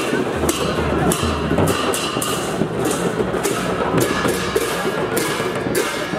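Procession percussion: a drum beating and metal cymbals clashing in a steady rhythm, about two strikes a second.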